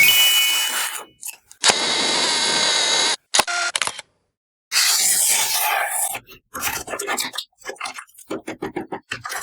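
Toy food and its packaging being handled close to the microphone: stretches of rustling and scraping, then a quick string of short taps and rubs in the last few seconds.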